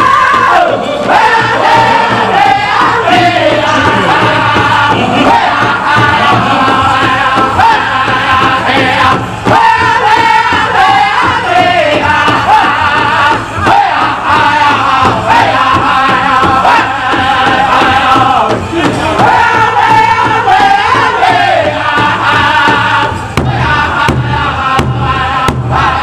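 Powwow drum group singing a chicken dance song together around a big drum, beating it in a steady rhythm. The vocal phrases start high and fall, and the drumbeat grows louder near the end.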